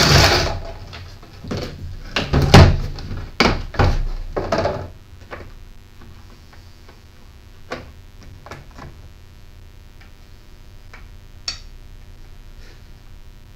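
Hard objects being handled while working on a chainsaw: a run of clunks and knocks in the first five seconds, then a few scattered clicks.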